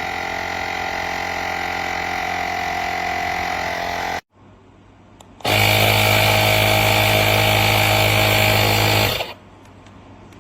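The jump starter's built-in air compressor running with a steady electric motor hum. It stops abruptly about four seconds in, starts again louder about a second later, and cuts off near the end.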